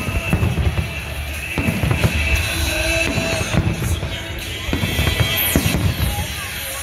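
Aerial firework shells exploding one after another, a dull bang every half second to a second and a half, with music playing throughout.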